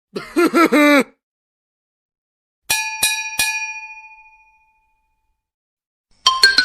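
A small bell struck three times in quick succession, about a third of a second apart: bright metallic dings whose ringing fades away over about a second. Just before it, a short sound with a wavering, voice-like pitch.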